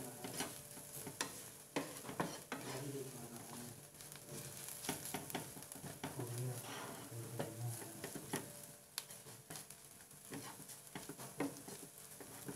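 Wooden spatula stirring and scraping sliced onions and ground spices in a non-stick frying pan, with irregular taps of the spatula on the pan over a light sizzle of frying oil. The masala is being fried with the onions.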